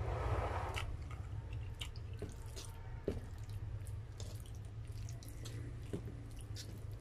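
A long wet slurp of spaghetti noodles, followed by scattered wet mouth clicks and a fork clicking against a metal plate, over a steady low hum.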